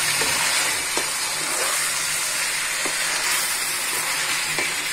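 Beef, potatoes and chana dal sizzling in oil while a wooden spatula stirs them, with a few light knocks of the spatula against the pot.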